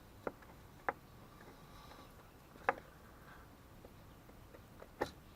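Four sharp knocks, about a second or two apart, the third the loudest, from hands and hardware bumping around a skid steer's battery compartment during a battery installation.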